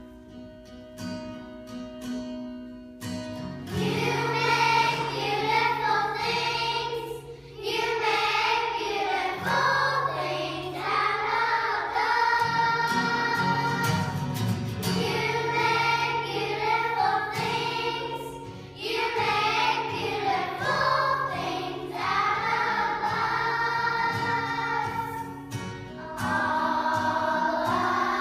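Children's choir singing in unison to a strummed acoustic guitar. The guitar plays alone for about the first three seconds before the voices come in.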